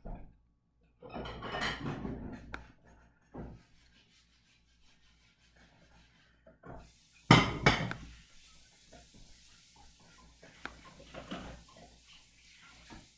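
Intermittent household clattering and knocking, with one sharp, loud clack about seven seconds in.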